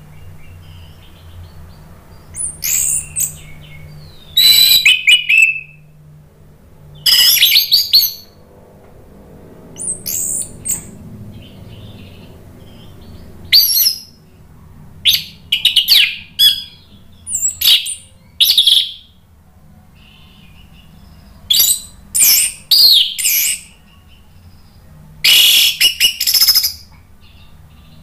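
Orange-headed thrush singing: loud, high-pitched, varied phrases of about a second each, broken by pauses of a second or two, over a faint low hum.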